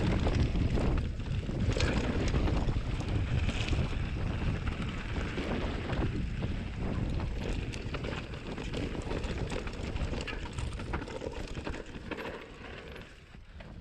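Wind buffeting the microphone over the rolling and rattling of a mountain bike on a dirt trail, with many small knocks from bumps. It quietens about twelve seconds in.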